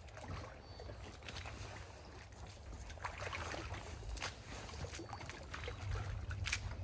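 Sloshing and splashing in wet mud, with scattered knocks over a steady low rumble.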